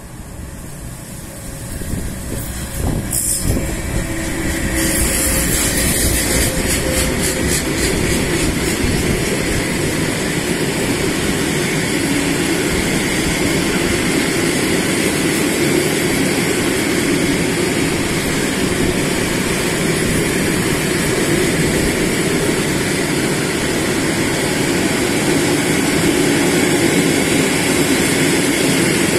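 Pesa Gama 111Ed electric locomotive coming up and passing close by in the first few seconds, followed by a long freight train of open coal wagons rolling past with a steady, loud rumble and rattle of wheels on rail.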